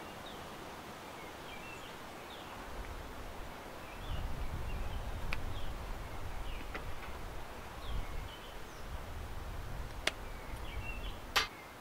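Bonsai scissors snipping through tree roots: several sharp, scattered snips. Under them are faint bird chirps and a low rumble that starts about four seconds in.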